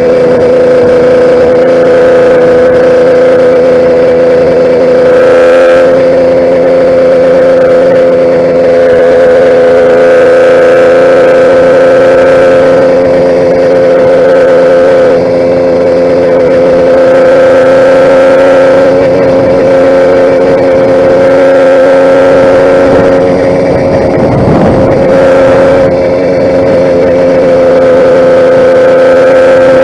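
YD100 two-stroke motorized-bicycle engine running steadily at an even speed, loud and unchanging in pitch. A brief rush of noise breaks in about three-quarters of the way through.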